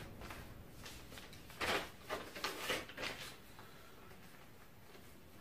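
Paper rustling as a small notepad is handled: a few short rustles about two to three seconds in, then quiet room tone.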